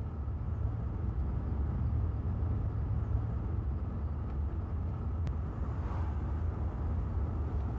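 Steady low rumble of a moving car heard from inside the cabin, with a single faint click about five seconds in.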